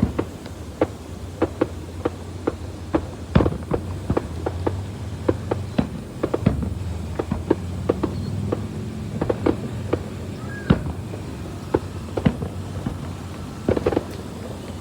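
Fireworks going off: a long, irregular run of sharp pops and bangs, some close together and some a second or more apart, over a low steady rumble.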